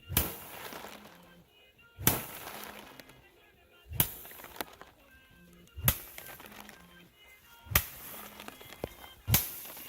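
Six sharp, heavy strikes in an even rhythm about every two seconds, each dying away over about a second.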